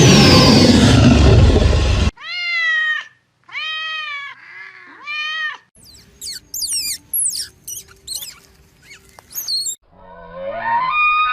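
A sequence of different animal calls cut one after another: a loud rough roar fades out about two seconds in. Four arching, cat-like meowing calls follow, then about four seconds of rapid high chirps and whistles, then a longer wavering pitched call near the end.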